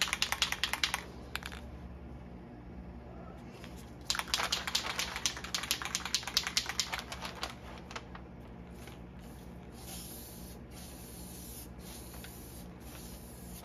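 Aerosol spray-paint can shaken hard, its mixing ball rattling fast in two spells. About nine seconds in come a series of short hissing bursts of spray.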